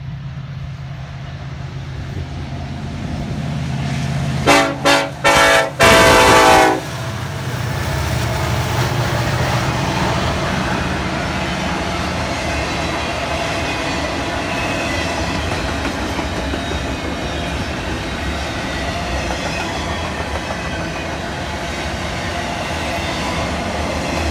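Union Pacific SD70AH-T4C diesel locomotive approaching with its engine running, then sounding its horn in a quick series of short blasts ending in a longer one about four and a half seconds in. After that, a long string of double-stack container cars rolls past with a steady rumble and clatter of wheels on rail.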